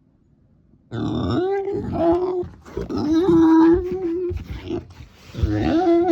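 Micropig making an unusual drawn-out cry: three long, pitched calls, the first starting about a second in, each held for one to one and a half seconds.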